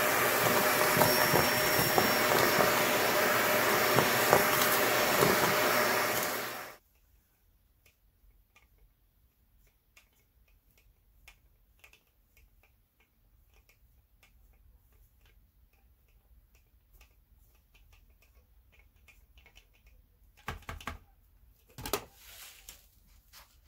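Vacuum cleaner running as its wand sucks up fluffy debris from a rug, switched off abruptly about seven seconds in. Then faint scattered crackles and rustles, with two brief louder rustling bursts near the end.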